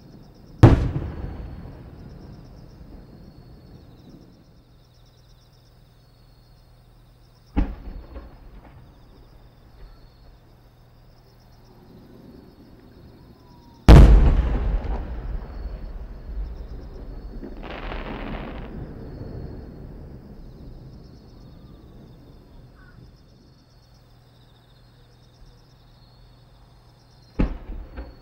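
Aerial firework shells bursting overhead: four booms, the loudest about halfway through, each followed by a long rolling echo. Insects chirr faintly and steadily underneath.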